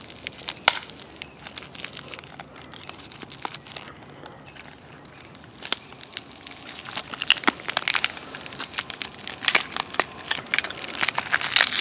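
Shattered Kindle Fire tablet being bent apart by hand, its cracked screen glass and frame crackling and crunching in scattered sharp cracks that come thicker and louder in the second half.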